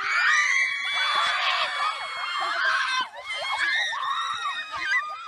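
A group of children screaming and shrieking at once, many high voices overlapping, with a brief lull about three seconds in.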